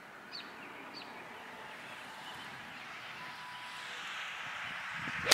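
Faint outdoor ambience with a bird chirping twice in the first second, ending in one sharp click of a golf club striking the ball.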